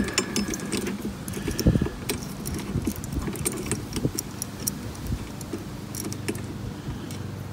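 Light metallic clinks and ticks, irregular and scattered, from a slotted steel strap, a bolt and a nut being handled and fitted by hand against a lawn mower's tubular steel handle.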